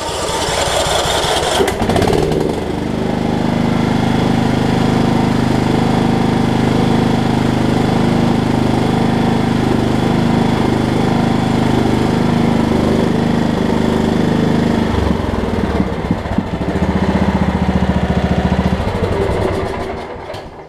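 Kohler Command 15.5 hp engine on a Craftsman riding mower, started on choke: it cranks briefly and catches, then runs steadily. Its note changes about fifteen seconds in, and it dies away near the end. The engine now turns freely after a wrongly fitted deck belt had locked it.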